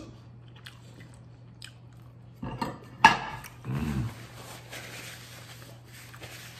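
A short voiced grunt-like sound about three seconds in, with a sharp click, followed by paper towel rustling as hands and mouth are wiped.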